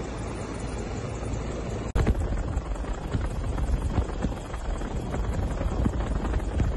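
Helicopter cabin noise: a steady rush of rotor and turbine engine sound. About two seconds in it drops out briefly at a cut and comes back louder and rougher, with uneven low thumps.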